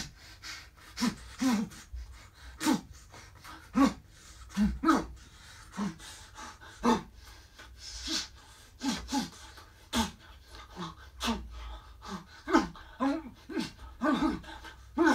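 A man's short grunts, gasps and hard breaths of effort, a boxer's exertion sounds performed dry at the microphone for ADR: a quick series of separate bursts, one or two a second.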